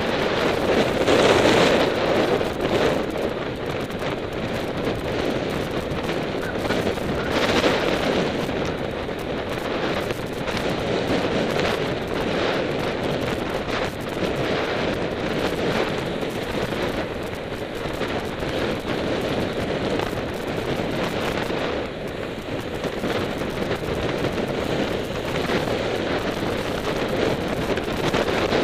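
Wind rushing over the microphone of a camera carried on a moving road bike, a steady rushing noise with a couple of louder gusts, the first about a second in.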